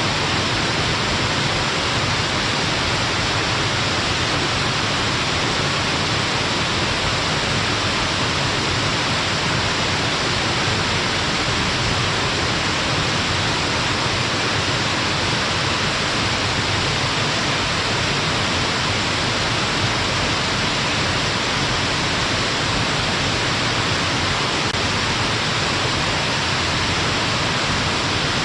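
Stepped waterfall: water cascading down a staircase of rock ledges, a steady, even rush of falling water.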